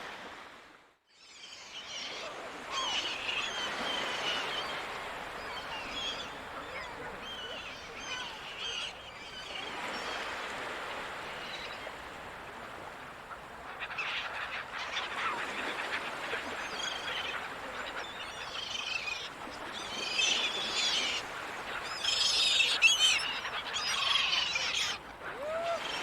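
Seagulls calling over a steady wash of sea. Bursts of calls come about three seconds in and again from about fourteen seconds, with the loudest near twenty-three seconds. The sound drops almost to silence for a moment about a second in.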